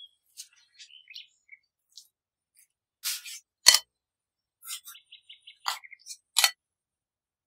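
Plastic cling film rustling and crackling as it is pulled over a glass bowl of dough, with a sharp snap about halfway through and another crackle near the end. Short high chirps come in between.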